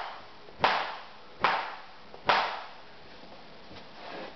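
Three sharp cracks about 0.8 s apart, each with a short fading tail.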